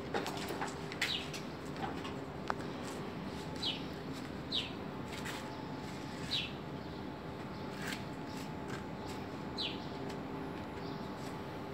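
A small bird chirping: about five short calls, each falling in pitch, spaced one to three seconds apart, over a steady low hum with a few sharp clicks.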